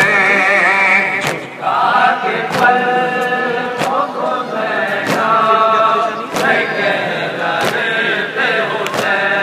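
A noha, a Shia mourning lament, chanted in a long-drawn, wavering melody, with sharp matam strikes (hands beating on chests) keeping an even beat about once every second and a quarter.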